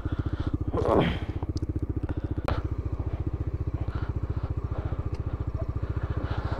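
Bajaj Dominar 400's single-cylinder engine running at low revs under the rider, a steady, even, rapid thumping as the bike creeps along. A brief voice is heard about a second in.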